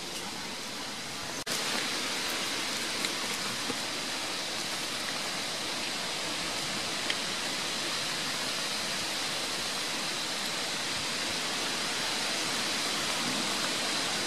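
Steady, even hiss, which gets louder at a sudden cut about a second and a half in, with a few faint clicks.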